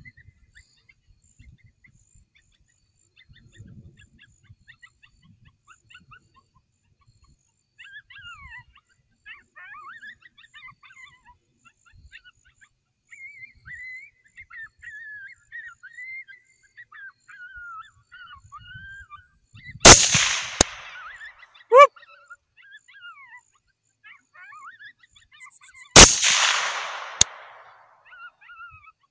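Two rifle shots from a 6.5 Grendel AR-15, about six seconds apart, each trailing off in an echo. Before them come faint whining, yelping cries from a coyote pup distress call.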